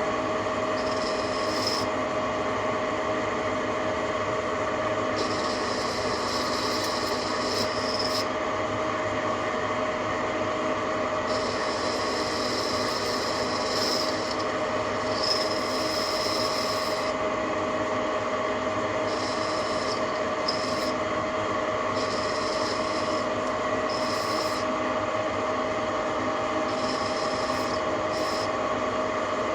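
TV-16 lathe running steadily with a constant whine from its drive, while the cutting tool bores out the inside of a part, the cut coming and going as a higher hiss in stretches of a second or a few seconds.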